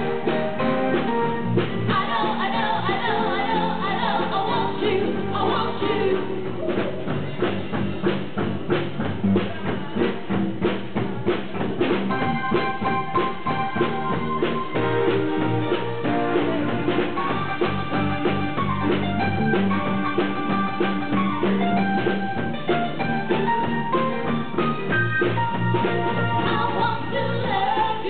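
Live band playing a song: vocalists singing over a drum kit and backing instruments, with a steady drum beat.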